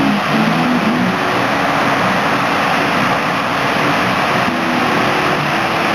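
Steady roar of ocean surf breaking on a sandy beach.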